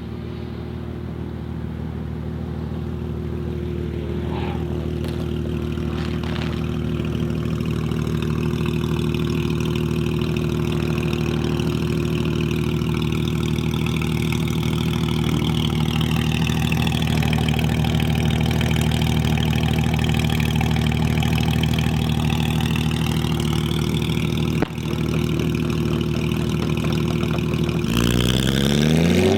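A car engine idling steadily and slowly growing louder, with a fainter engine note sweeping down and back up in pitch in the background. Near the end the engine revs up sharply, its pitch climbing as it accelerates.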